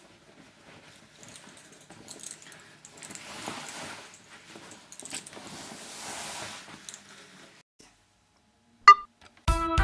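Faint rustling and shuffling of clothes as someone dresses, louder twice in the middle. Near the end comes a short electronic beep from a phone's interface, and music starts right after.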